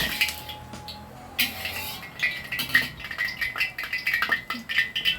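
Metal cookware clinking and knocking in the kitchen: a knock at the start, then from about a second and a half in a quick, irregular run of clinks, as a pan of cooking oil is heated.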